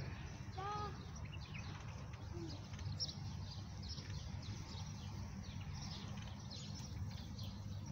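Small birds chirping, many short high chirps overlapping, over a steady low hum. There is one lower, arched call about a second in.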